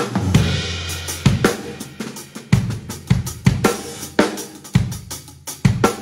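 Acoustic drum kit played live in a studio room: a crash cymbal and a low tom ring out together at the start, closing a fill, then a steady groove of bass drum, snare and hi-hat with cymbal accents.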